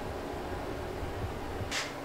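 Steady low mechanical hum that stops near the end, followed by a brief rustling noise.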